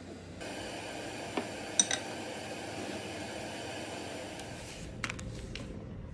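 Tableware clinking: three light, ringing clinks of ceramic or glass dishes about a second and a half to two seconds in, over a steady hiss.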